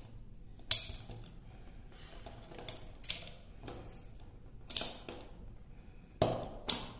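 Thin-blade screwdriver prying a metal snap ring off a garbage disposal sink flange: scattered sharp metallic clicks and short scrapes. The loudest is about a second in, with others near three, five and six seconds.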